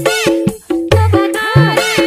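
Upbeat background music with a repeating bass line, briefly dropping out about halfway through.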